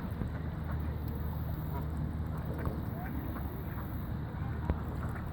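A flock of ducks and geese calling, with scattered short quacks and honks over a steady low rumble. A single sharp click comes near the end.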